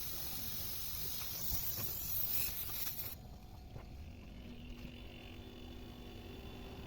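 Pressurised gas hissing through a refrigerator's capillary tube as the clogged tube is flushed with solvent, cutting off suddenly about three seconds in.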